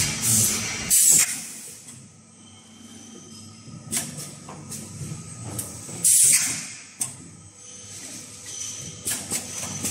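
Automatic thermoforming blister packaging machine running, its pneumatic cylinders letting out sharp hisses of compressed air about a second in and again about six seconds in. A few sharp clacks from the moving stations and a steady low running noise sound between the hisses.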